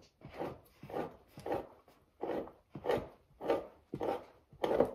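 Fleshing knife scraping fat and membrane off a raccoon hide stretched over a PVC fleshing beam, starting at the neck behind the ears. It comes as short slicing strokes, about two a second, each a brief scrape.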